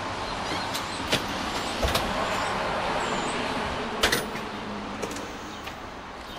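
A storm door clicking and knocking as it is opened and swung, with the loudest knock about four seconds in. Under it is the hiss of a passing road vehicle, swelling and then fading.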